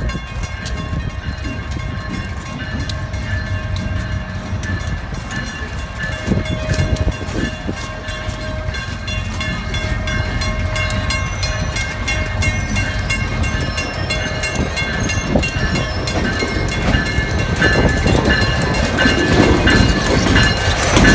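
Diesel-hauled passenger train running on the track, a steady low rumble with repeated wheel clicks, growing louder near the end.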